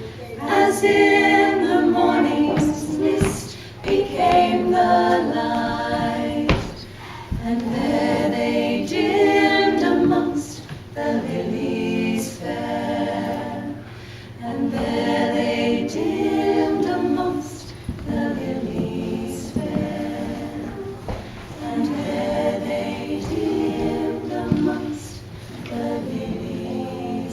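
A cappella choir singing slow phrases, each a few seconds long, with short breaks between them.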